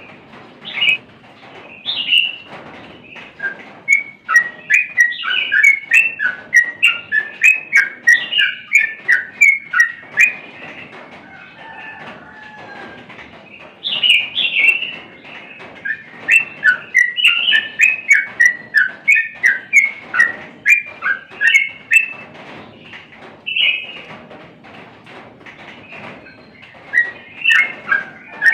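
Yellow-vented bulbul (trucukan) singing in full voice: runs of quick, bubbly chattering notes in bursts, broken by a pause of a few seconds around the middle and another shortly before the end.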